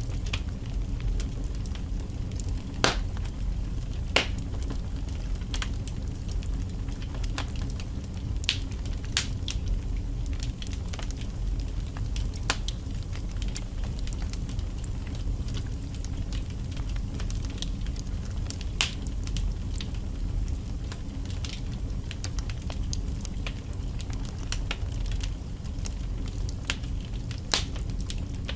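Wood fire burning in a fireplace: a steady low rumble of flames with irregular sharp crackles and pops from the logs, a few of them louder.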